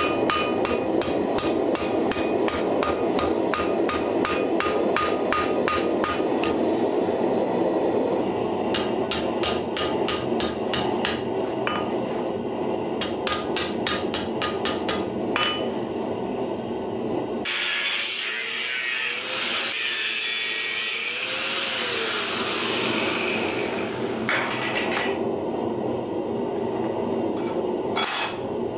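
Hand hammer striking a red-hot steel bar on an anvil in rapid, even blows, about three a second, the anvil ringing with each blow. After about seventeen seconds the blows stop for several seconds and a hiss takes over, then hammering resumes near the end.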